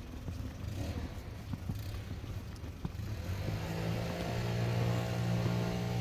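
A motor vehicle engine running: a rough rumbling at first, then a steady low hum sets in about three and a half seconds in and grows louder.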